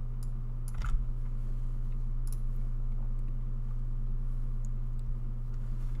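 Steady low electrical hum, with a sharp computer-mouse click about a second in and a fainter click a little after two seconds.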